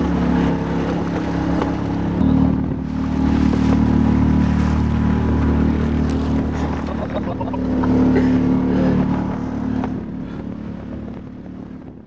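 Motorboat engine running steadily under way, its pitch stepping up about two seconds in, then fading out near the end.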